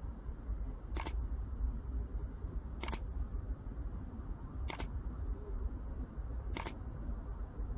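Mouse-click sound effects of a like-and-subscribe animation: four quick double clicks, about one every two seconds, over a low steady background rumble.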